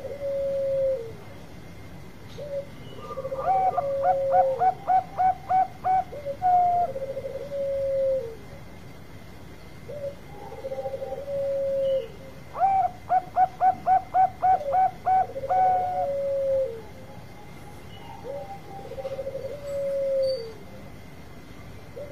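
Zebra dove of the Bangkok type cooing: short rolling coos that drop in pitch at the end, and twice a long phrase of about eight quick staccato coo notes, its long song.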